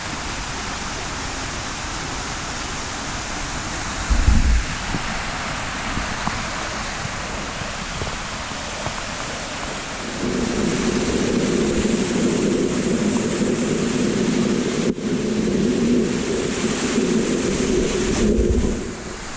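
Steady rush of water. There is a brief low thump about four seconds in, and a louder, lower rumble joins from about ten seconds in until near the end.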